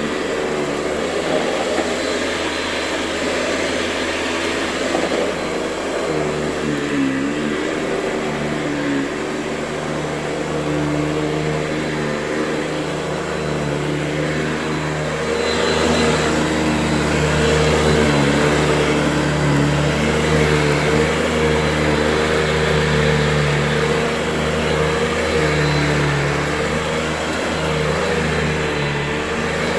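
Hoover Convertible U4345 upright vacuum cleaner running steadily, its motor pitch wavering slightly as it works over the floor, a little louder from about halfway through.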